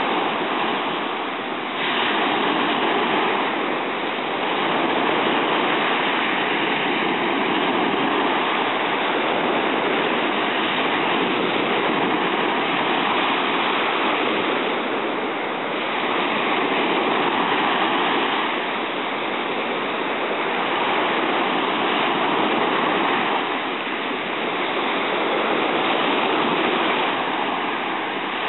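Ocean surf breaking and washing up a sandy beach: a steady rush of water that swells and eases every few seconds.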